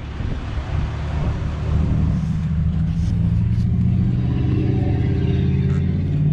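A road vehicle's engine running with a low, steady hum that sets in about a second in, heard from inside a pickup's cab.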